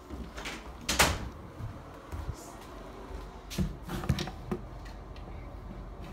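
A few scattered knocks and thumps from a phone being carried while walking over a hardwood floor, the loudest about a second in and a cluster of three a little past the middle, over a low rumble of handling noise.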